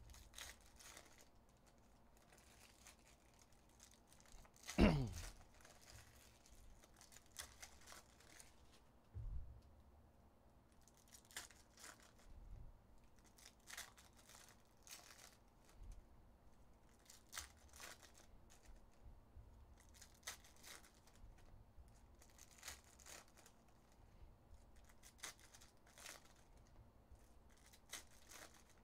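Trading-card pack wrappers being torn open and crinkled and cards handled, a string of short faint rustles and clicks, with one sharp knock about five seconds in and a softer thump around nine seconds.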